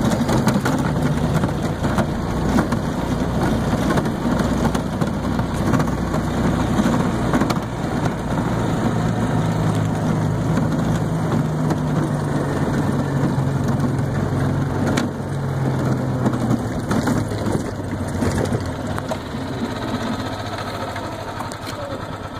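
Golf cart running steadily as it drives across grass, a low motor hum that shifts slightly in pitch partway through.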